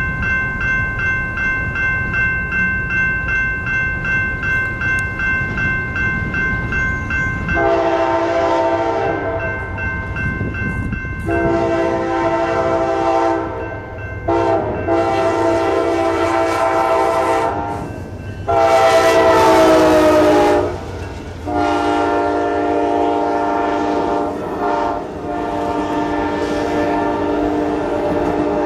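Grade-crossing warning bells ring rapidly over the rumble of an approaching Amtrak Pacific Surfliner train. About 7 seconds in, the locomotive sounds its multi-note chord horn for the crossing in five blasts, the last one long.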